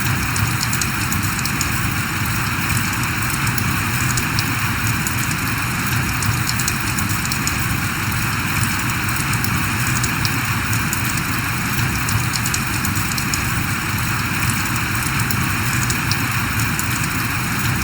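Steady rain falling, a dense patter of drops over a constant hiss that holds even throughout.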